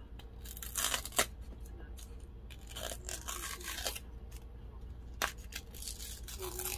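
Paper seal being scratched at and torn off the mouth of a plastic glitter jar, in a few short rasping rips, with a sharp click about five seconds in.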